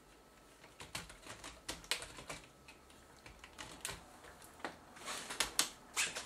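Irregular sharp clicks and knocks of a Sony DSR-PD170P camcorder's handle and body being handled and fitted together, in a cluster about a second in and another near the end.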